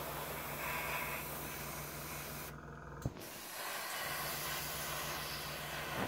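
Airbrush spraying paint with a steady hiss over the steady low hum of its compressor. The spray breaks off briefly about halfway through, with a click, then starts again.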